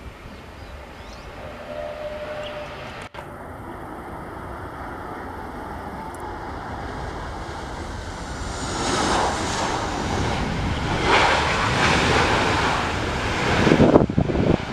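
A jet airliner on landing approach passing close by. Its engine noise swells over the second half, and a high whine falls in pitch as it goes past. Wind buffets the microphone near the end.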